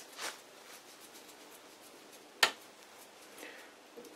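Small screwdriver tip clicking and scraping against the metal protector ring on a lathe spindle nose, with one sharp metal click about two and a half seconds in.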